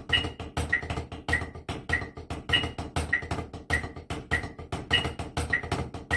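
Snare drum played with drumsticks in the Afoxé groove at 100 bpm, a steady run of strokes locked to a metronome. The metronome beeps about every 0.6 s, with a higher-pitched beep on the first of every four beats.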